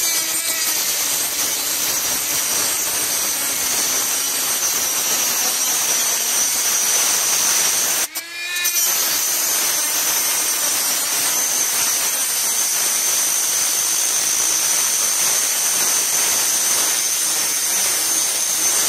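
Small high-speed rotary grinder with an abrasive disc grinding the head off a steel rivet holding the front lower ball joint of an MGF/MG TF, a steady high-pitched whine. About eight seconds in, the tool briefly drops off and spins back up.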